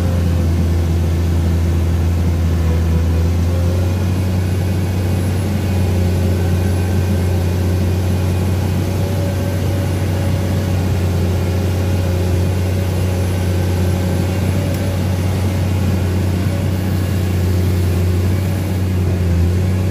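Excavator's diesel engine running steadily as the machine tracks through deep mud: a constant low drone that holds the same pitch throughout.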